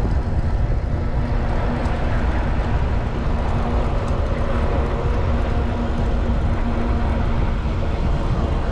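Strong headwind buffeting the microphone of a moving e-bike, a steady low rumble, with a faint steady hum under it.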